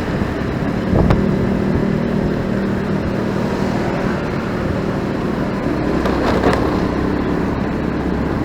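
Motorcycle riding in city traffic: a steady engine hum under road and wind noise, with other traffic swelling briefly about a second in and again around six seconds.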